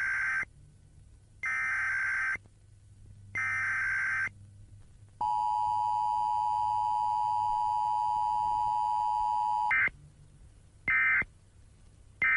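Emergency Alert System broadcast tones: three warbling data bursts about a second apart, then the steady two-tone attention signal held for about four and a half seconds, then three short bursts near the end.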